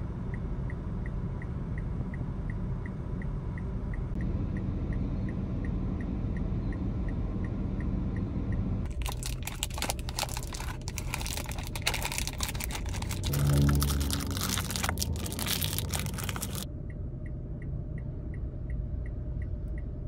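Foil lozenge wrapper and its cardboard box crinkling and crackling as a lozenge is taken out and unwrapped, from about nine seconds in until near the end. Underneath there is the steady low rumble of a car, with a faint regular tick about twice a second.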